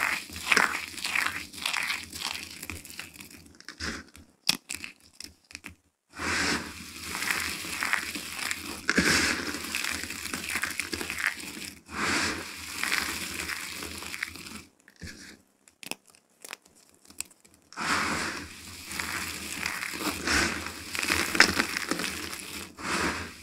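Hands squeezing and sifting a heap of dry, broken soap chips: a dense crunching and crinkling. It stops twice for a couple of seconds, about four and fifteen seconds in.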